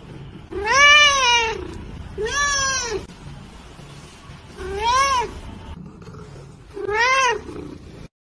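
A domestic cat meowing four times, each meow about a second long and rising then falling in pitch, with pauses of about a second between them.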